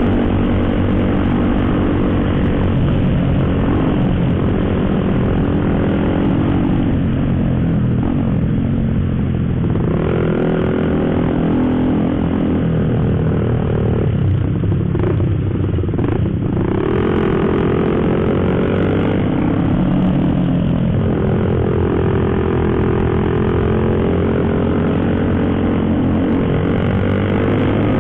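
Motorcycle engine running under way on the road, its pitch slowly rising and falling as the bike speeds up and eases off, over a steady rush of road and wind noise.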